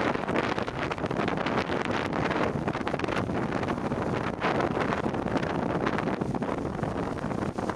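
Strong storm wind buffeting the microphone over the rush of breaking waves and spray along a sailing trimaran's hull, in gusts of up to 40 knots.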